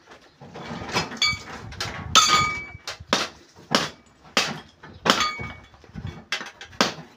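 Repeated sharp metallic knocks and clinks, about a dozen, irregular at first and then roughly one every two-thirds of a second, some leaving a short ring; the loudest comes about two seconds in.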